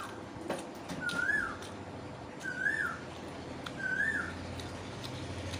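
An animal's short whistled call, rising then falling, repeated three times about every second and a half.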